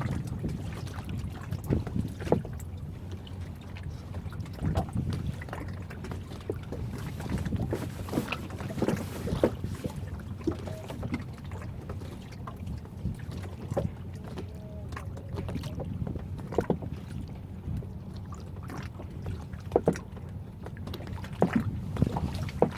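Small sectional boat on the water: a steady low rumble with frequent short knocks and taps.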